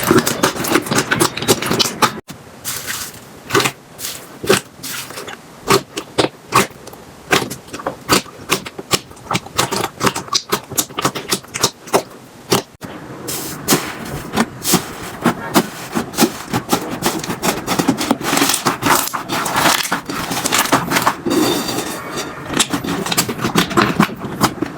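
Slime being squished and poked: a dense run of sticky clicks, pops and crackles, with abrupt changes about two seconds in and again about halfway through.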